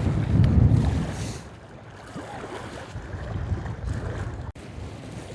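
Strong gusty wind buffeting the microphone: a heavy, uneven low rumble that is loudest in the first second and a half, then eases.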